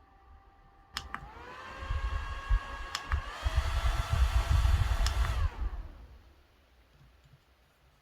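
Small battery handheld fan switched on with a button click, its motor whirring up to speed. A second click steps it up to a faster, higher-pitched speed, with a low rumble of its air on the microphone. A third click switches it off and the whir winds down and fades.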